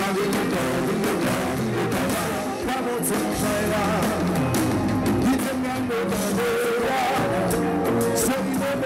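A live konpa band playing, with electric guitar and singing over a steady beat.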